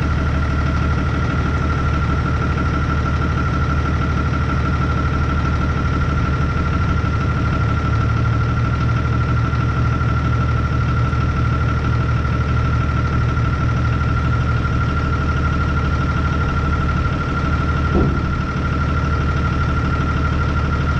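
Hino truck's diesel engine idling steadily, with a constant high whistle and hiss over it as the brake air lines are purged of the moisture that froze in them.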